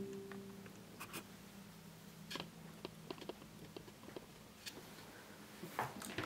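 The last of the Amazon Echo Show's startup chime dies away in the first moment, then faint scattered clicks and light scrapes of hands handling the device on a table, with a few closer together near the end.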